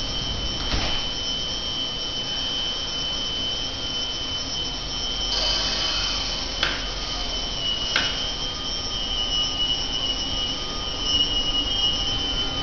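Double-deck electric regional train at the platform, with a steady high whine throughout and a few sharp clicks; the train starts to roll in the second half and the whine wavers near the end.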